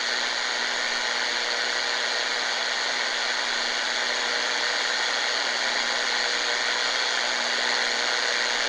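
Tecsun GR-138 portable radio's speaker giving off steady static hiss while tuned off-station on the shortwave band, with a faint steady hum underneath.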